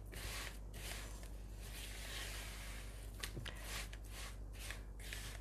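Spatula scraping and pushing crumbly oat-and-cocoa cookie dough around a mixing bowl: a rough swishing in repeated strokes, with a couple of light clicks a little past halfway.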